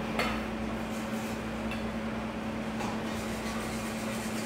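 Steady low hum over an even hiss, with a single light tap just after the start.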